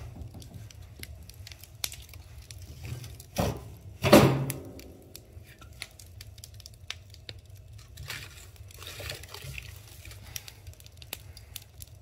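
Wood fire crackling and popping in an open wood stove, in scattered sharp snaps, with two louder knocks about three and a half and four seconds in, the second ringing briefly.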